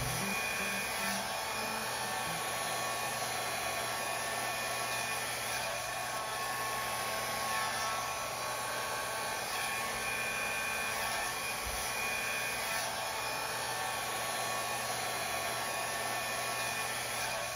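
Handheld hair dryer running steadily with a faint steady whine, blowing wet acrylic pouring paint across a canvas.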